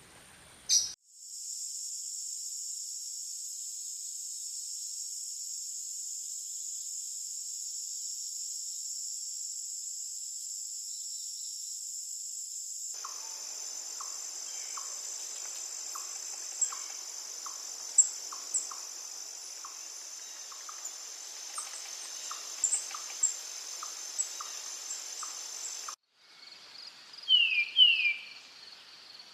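Insects trilling in a steady high-pitched drone. About halfway through, short ticks and chirps join in. Near the end the sound cuts abruptly to a pulsing insect trill with pairs of short, quick falling calls.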